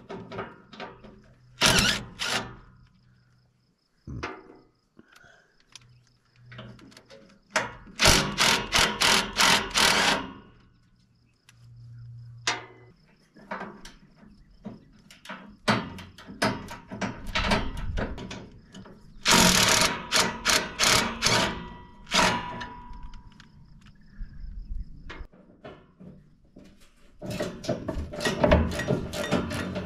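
Cordless 3/8-inch impact wrench hammering in about five bursts, each one to two and a half seconds long, loosening bolts at the fan and water pump of a Caterpillar 3304 diesel. Metal clinks of tools fall between the bursts.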